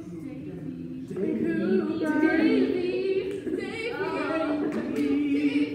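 Young voices singing unaccompanied, a show tune sung a cappella, getting louder from about a second in.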